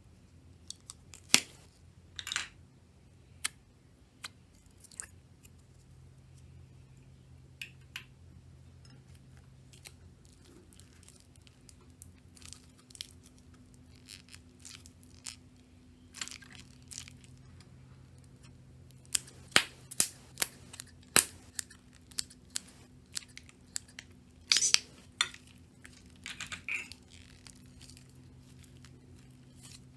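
Slime being handled, giving scattered sharp crackles and pops that come thickest in clusters about two-thirds of the way through, over a faint steady hum.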